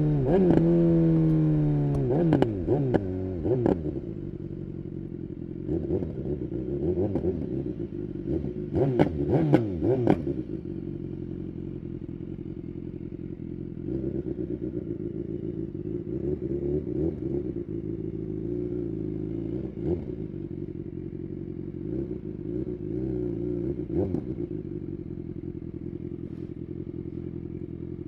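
BMW S1000R's inline-four engine through a full Akrapovic exhaust, winding down from high revs in the first couple of seconds. It then settles to idle, with several sharp throttle blips in the first ten seconds and a few lighter blips later.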